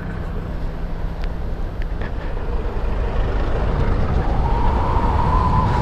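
Ride noise on a Voltz EVS Work electric motorcycle: steady low rumble and wind on the microphone, growing louder as it speeds up. From about three and a half seconds in, the electric motor's whine rises in pitch as the bike accelerates, then levels off near the end.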